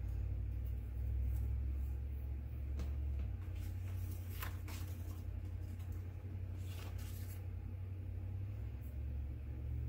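Brief rustles of paper and sticker sheets being handled, the clearest about halfway through and again a couple of seconds later, over a steady low rumble.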